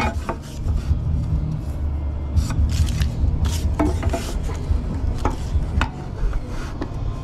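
A speed square being slid and set down on a wooden board while a cut is measured and marked, giving short, irregular scrapes and rubs. Under them runs a steady low rumble.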